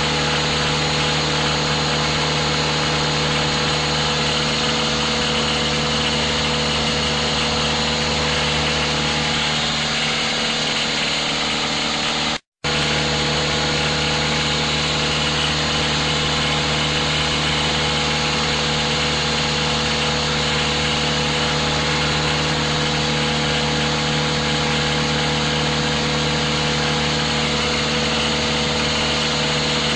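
An engine running at a steady speed, an even mechanical drone with unchanging pitch. The sound cuts out abruptly for a split second about twelve seconds in, then carries on unchanged.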